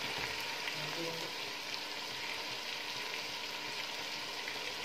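Chicken pieces frying in hot oil in a steel pot, a steady, even sizzle.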